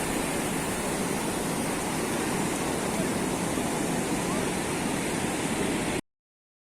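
Rough sea surf rushing steadily on the beach, with no distinct breaks, cutting off suddenly about six seconds in.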